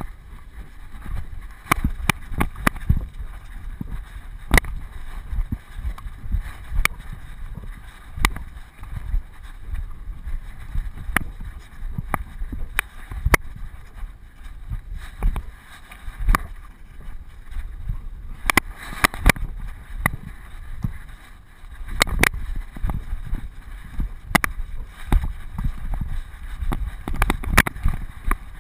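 Low rumble and irregular sharp knocks and rattles from a GoPro Hero2 strapped to a running dog's harness as it jostles, with wind buffeting the microphone.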